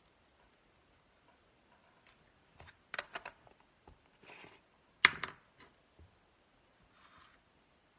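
Craft materials handled on a tabletop: scattered small clicks and taps, a quick cluster about three seconds in and the sharpest, loudest click about five seconds in, with a couple of brief soft brushing sounds between.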